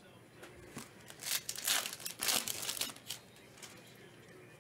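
A trading-card pack's foil wrapper being torn open and crinkled: a run of crackly rustles from about one to three seconds in.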